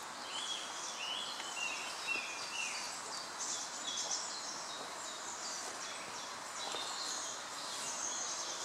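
Songbirds singing in woodland: many short chirps and warbled phrases, high-pitched, over a steady background of outdoor noise.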